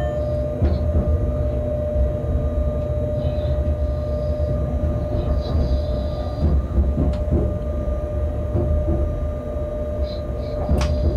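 Inside a locomotive cab while it runs along the track: a steady low rumble from the running gear and rails, with a steady high tone throughout and a few light clicks.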